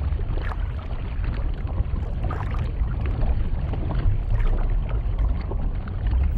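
Low, steady rush of flowing stream water heard underwater, with a few faint clicks.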